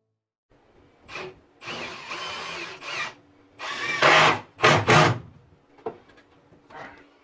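Power drill running into wood in short bursts: a steady run with a motor whine, then two louder, harder bursts.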